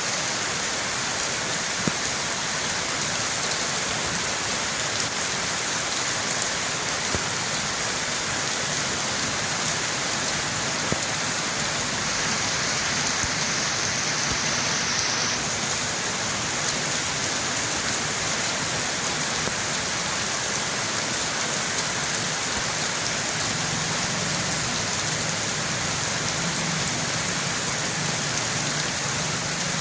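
Steady rain falling, an even hiss with a few sharp single ticks.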